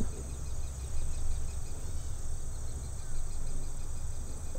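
Insects trilling steadily in a high register, over a low steady rumble.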